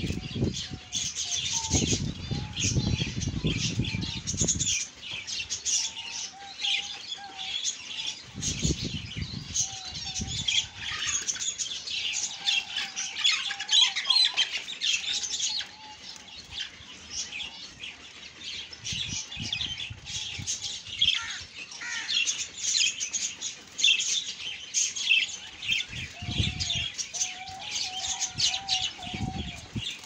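Budgerigars chirping and chattering without a break, a dense, high flock warble with some lower calls mixed in. Low rumbles, likely handling on the microphone, come and go several times.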